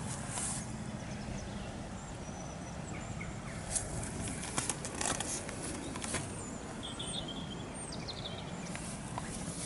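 Birds chirping over a steady low background rumble, with a few short sharp clicks in the middle.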